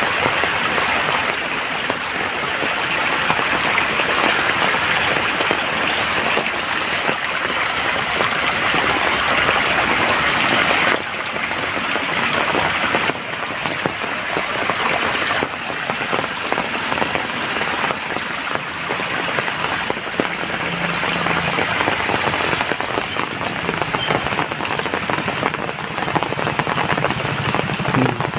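Steady rain falling, an even, dense patter of raindrops on surfaces.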